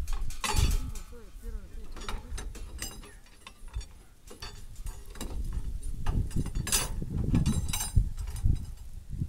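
Irregular clinks and knocks of metal hardware being handled at the foot of the pole, over a low wind rumble on the microphone, with indistinct voices.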